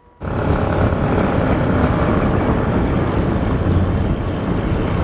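Steady low rumble of vehicles running, cutting in suddenly a moment in and holding level without a break.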